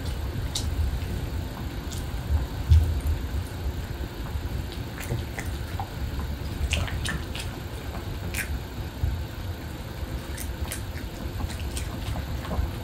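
Pomeranian dogs chewing pieces of grilled beef: scattered wet smacks and sharp little clicks over a steady low rumble.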